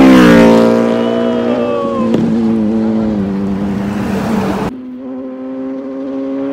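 Motorcycle engine held at high revs as the bike rides past, its pitch dropping about half a second in and then holding steady. The sound cuts off abruptly a little over four and a half seconds in and picks up again more quietly.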